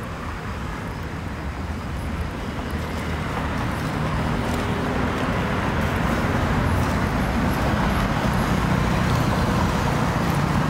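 Road traffic noise: a steady rush of passing vehicles that grows gradually louder.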